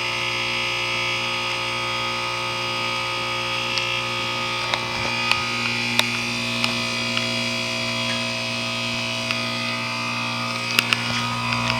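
2004 Goodman 3.5-ton heat pump running in its defrost cycle: a steady electrical hum from the outdoor unit, with a few light ticks scattered through it.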